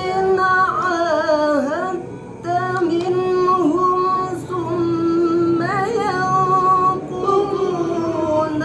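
A single high voice chanting Quran recitation in maqam Nahawand: long held notes with wavering melismatic ornaments, broken by a short breath about two seconds in.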